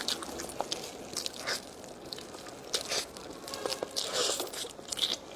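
A person eating close to the microphone: irregular crunching bites and chewing, a scatter of short crackles and clicks.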